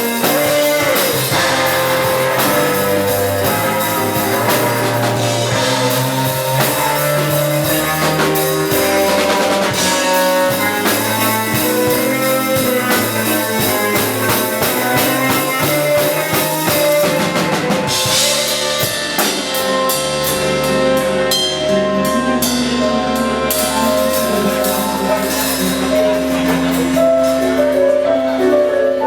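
Instrumental rock-jazz band music with drum kit and guitar playing a dense, steady groove. About eighteen seconds in the texture changes, with cymbals standing out for a few seconds.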